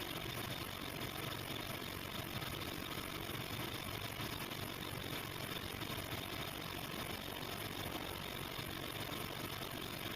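Engine idling steadily with an even, unchanging running noise, recorded as an abnormal noise.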